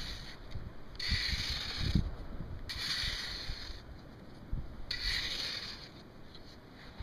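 Shovel blade digging into hard-packed, stony beach sand: three rasping scrapes about a second long each, with a few dull thumps.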